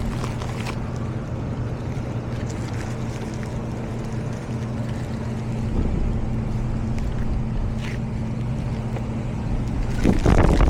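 Steady hum and rush of air from a running HVAC air handler's blower, with a couple of light clicks, getting louder near the end.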